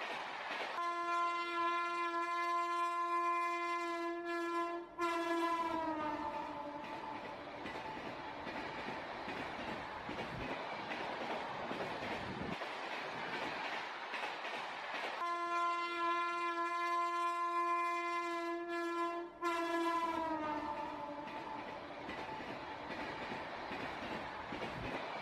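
Freight train wagons rolling past close by with a steady rumble of wheels on rails. The train horn sounds a long single-note blast that breaks off briefly and then slides down in pitch as it fades. The same horn blast comes again about halfway through.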